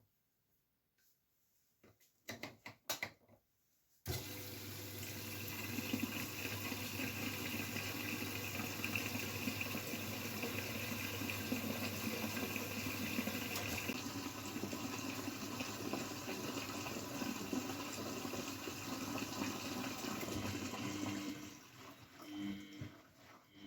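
Miele Novotronic W912 washing machine taking in water: a few clicks, then the inlet valve opens about four seconds in and water rushes steadily into the machine until it dies away about three seconds before the end.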